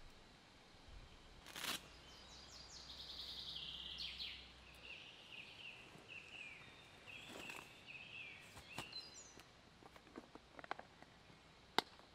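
Woodland birds singing in short repeated phrases and trills. Over them come brief rustles of a plastic packet and bag as things are taken out, a few small clicks, and near the end one sharp click of a plastic food-box lid.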